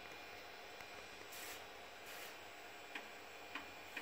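3.5-inch floppy drive during a ScanDisk surface scan: the read head steps from track to track with sharp clicks, three of them in the last second and a half. Two short hissing bursts come in the middle, over a faint steady hum.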